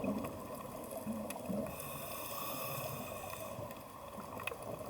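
Underwater coral reef soundscape heard through a hydrophone: a steady wash of water noise with scattered sharp clicks, and a faint set of steady high tones about halfway through.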